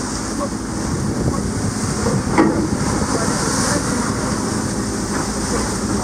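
Steady drone of a ship's engine heard on deck, under a steady high-pitched hiss, with a single knock about two and a half seconds in.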